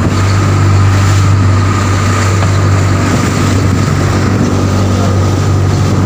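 Fishing boat's engine running steadily while the boat is under way, a constant low drone with a thin steady whine above it, over the rush of the wake along the hull.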